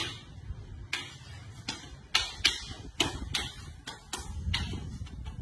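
Rattan fighting sticks clacking against each other in a Sumbrada partner drill: about ten sharp, uneven clacks, roughly two a second.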